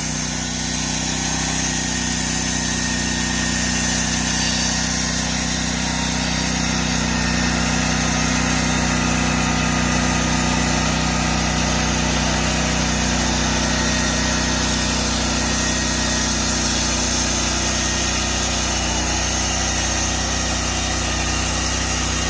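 Engine-driven Norwood portable band sawmill running steadily as it saws a board off a log.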